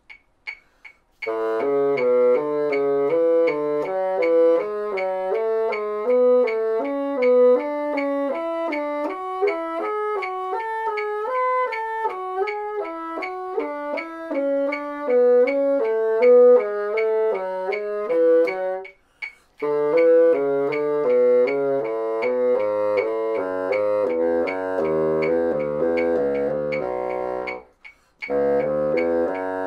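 Bassoon playing a scale exercise in thirds, an even run of notes stepping up and down, broken by two short breaths, one past the middle and one near the end. A metronome ticks steadily about twice a second underneath.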